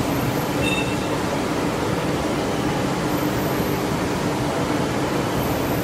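Steady machine-shop background noise: an even hiss with a low, constant machine hum.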